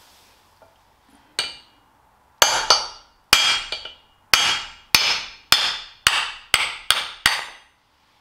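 Hammer blows on a bolt used as a drift, driving a wooden bung out of the pivot-pin bore in a cast tractor front axle beam. There are about a dozen sharp metallic strikes, roughly two a second, each ringing briefly. They start about a second and a half in.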